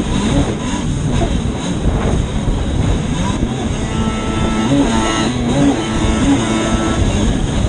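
Yamaha WaveBlaster personal watercraft's two-stroke engine running hard at race speed, with wind and water spray rushing over the onboard microphone as the craft crosses choppy wakes. The engine note rises and falls around the middle as the throttle changes.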